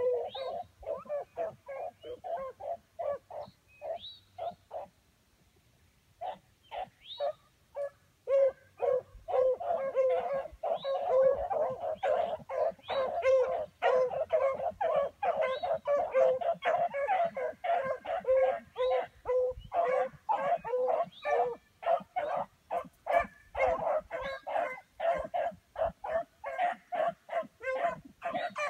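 A small pack of beagles baying while running, several hounds giving quick, short, repeated barks that overlap. The calls break off for a moment about five seconds in, come back sparsely, then thicken into a steady chorus as more hounds join.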